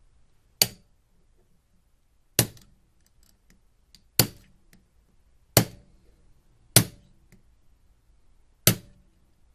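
Hammer blows striking the case of a combination lock along its seam: six sharp, separate strikes about every one and a half to two seconds, each with a short ring, as the case is being split apart.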